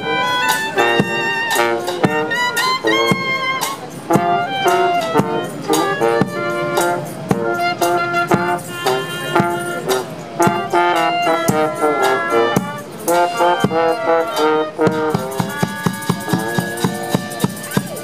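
Small street band playing: two brass horns and a clarinet carry the tune over a bass drum with cymbal. Near the end the drum settles into a quick, steady beat.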